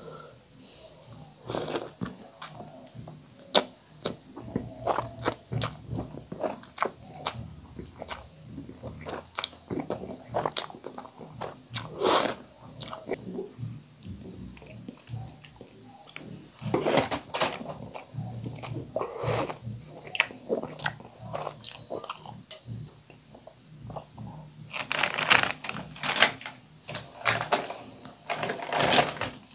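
Close-miked eating of spicy instant noodles in soup: wet chewing and slurping, with a run of short mouth clicks and several louder slurps spread throughout.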